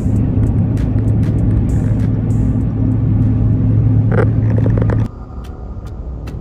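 Steady low drone of a vehicle cruising at highway speed, heard from inside the cabin. About five seconds in it cuts off abruptly to a quieter, lower vehicle hum.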